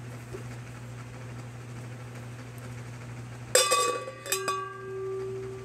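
Metal objects knocked together about three and a half seconds in, then twice more in quick succession about a second later. Each strike leaves a clear ringing tone, the last one held for over a second, a ring that sounds like steel.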